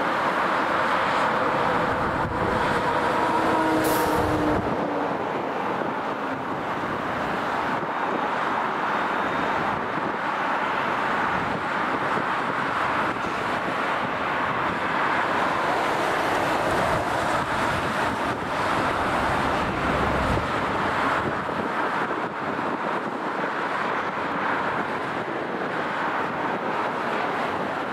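Four turbofan engines of an Airbus A380 running at taxi power as the airliner turns and rolls along the taxiway: a steady jet rumble and hiss, with a faint engine whine in the first few seconds. Wind gusts on the microphone twice.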